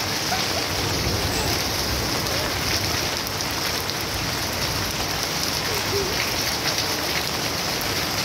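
Steady rain falling onto puddled ground and garden plants.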